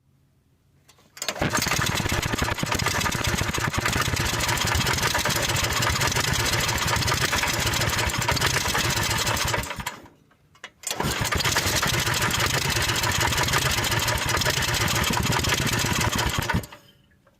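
Lawn mower engine of a go-kart running hard and steady, in two stretches with a short break about ten seconds in.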